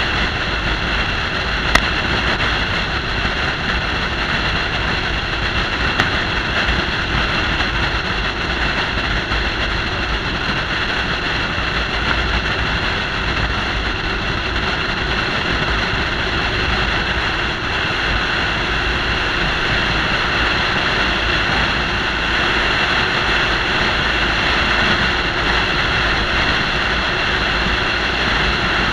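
Steady rush of wind and tyre noise from a car driving at highway speed, as heard by a camera mounted on the car's roof.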